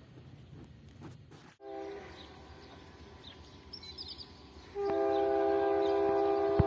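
Diesel freight locomotive's multi-chime air horn: a softer chord comes in about a second and a half in, then a loud, steady blast starts near the end and holds.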